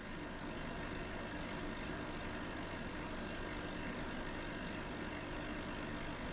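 Steady low hum with hiss, unchanging, with no distinct events.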